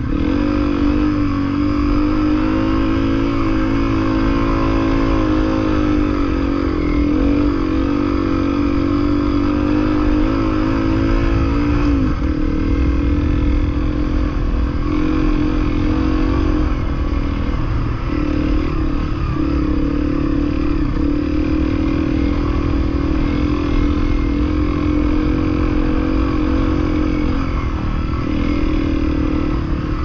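Honda CRF250L's single-cylinder four-stroke engine running steadily under way, its pitch dipping and recovering a few times with throttle changes.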